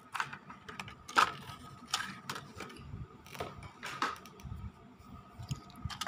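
Hands handling a plastic HO scale model diesel locomotive and its clear plastic packaging tray: a string of sharp plastic clicks and knocks, the loudest about a second in, as the model is set down and picked up again.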